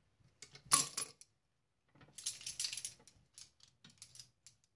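Steel hand tools, pliers and a wrench, clinking against a brass compression fitting: one sharp clink under a second in, a rattle of clinks around two to three seconds in, then a few light ticks.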